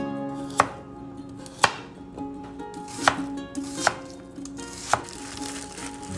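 Kitchen knife chopping carrot and onion on a plastic cutting board: about five sharp, separate strikes roughly a second apart, over soft background music.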